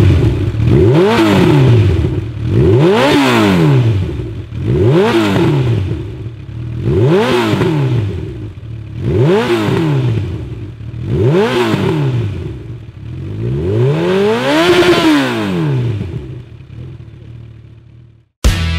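Honda CB1000R's inline-four engine revved again and again through a short IXIL twin-pipe exhaust, about one blip every two seconds, each rev climbing and dropping back toward idle. The last rev, near the end, is held longer and goes higher, then the engine falls back to a quieter idle.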